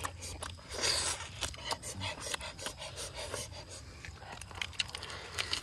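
Close-up eating sounds: chewing, lip smacking and grilled duck meat being pulled apart by hand, heard as irregular clicks and rasping rubs.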